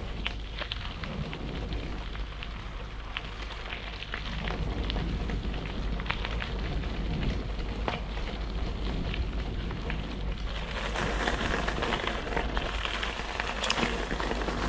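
Wind rumbling on the microphone during a bike ride, over a constant crackling rolling noise scattered with sharp ticks. The crackle grows fuller and louder about ten seconds in.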